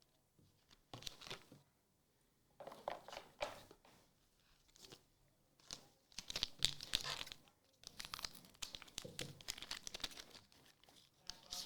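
A Magic: The Gathering booster pack wrapper being torn open and crinkled by hand, in irregular crackling bursts, loudest past the middle.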